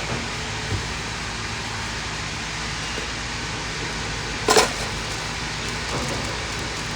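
Steady hum of background noise at a street-food stall, with a few light clicks and one short, sharp clatter about four and a half seconds in.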